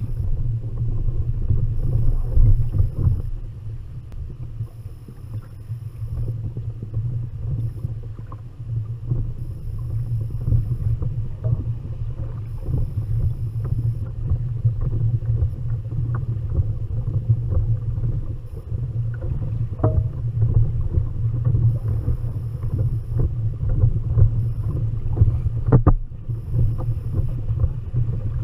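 Wind rumbling on the microphone and choppy water slapping against a kayak's hull, with scattered small knocks and clicks and a sharper click near the end.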